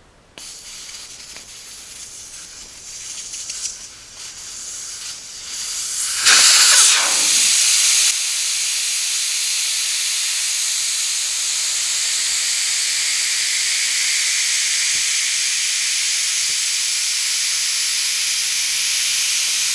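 Air hissing out of a Jeep's 33-inch tire through the open valve stem, its Schrader valve core pulled out to deflate the tire completely. The hiss wavers at first, bursts loudest about six seconds in, then runs steady and strong.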